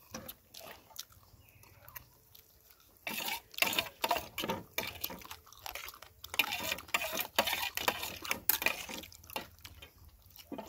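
Close-up wet chewing and lip-smacking of people eating grilled fish with their fingers, a run of short smacks that grows busier about three seconds in.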